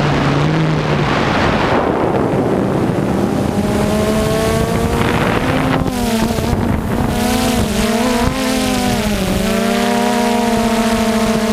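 A motor vehicle's engine running, its pitch wavering up and down a little, with a loud rushing noise over it for the first couple of seconds.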